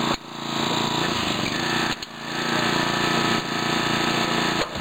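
Small engine of a hydraulic rescue tool's power unit running steadily while hydraulic cutters close on a car's roof pillar, with two brief drops in sound, one just after the start and one about two seconds in.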